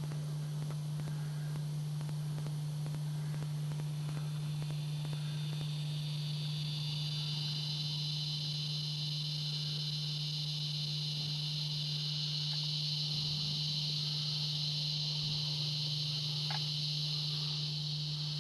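Insect chorus: a steady high-pitched shrill drone that swells a few seconds in and holds. Under it runs a constant low hum.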